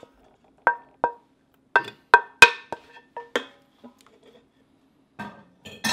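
Wooden spatula knocking against a plate and the stainless steel inner pot of an Instant Pot while scraping in the meat and stirring. There are about nine short taps, each with a brief ringing tone, mostly in the first three and a half seconds.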